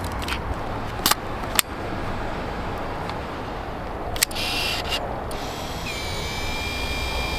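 Canon Sleek 35 mm point-and-shoot camera being loaded: a couple of sharp plastic clicks, the back snapping shut about four seconds in, then its film-advance motor whirring with a steady high whine as it auto-winds the new roll to the first frame. A steady low rumble runs underneath.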